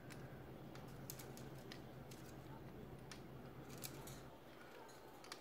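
Faint, scattered clicks and taps of small hard-plastic parrot-toy pieces on a wicker wreath as they are handled and knocked, a handful in a few seconds, over a low steady hum.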